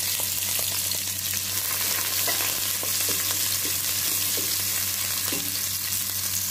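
Sliced red onions sizzling in hot oil with fried garlic in a stainless steel pot, with a steady hiss. A wooden spatula stirs them, with short scrapes and knocks against the pot.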